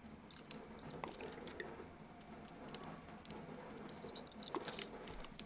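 Faint squishing of a plastic squeeze bottle as lemon juice is squeezed into a wooden spoon, with scattered light clicks and drips.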